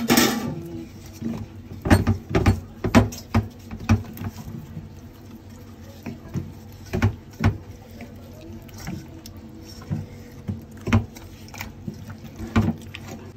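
Hand mixing spiced raw chicken pieces in a stainless steel bowl: irregular knocks and wet handling sounds, some louder than others, at uneven intervals.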